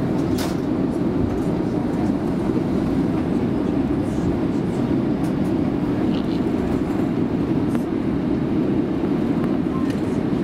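Cabin noise inside an Airbus A350-941 on the ground during taxi: a steady rumble from its two Rolls-Royce Trent XWB-84 engines at idle, with a few faint clicks and rattles.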